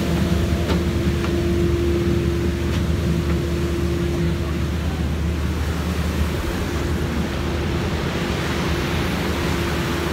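Cruise boat's engines running steadily with a low rumble and a constant hum, mixed with the rush of the wake and wind on the microphone.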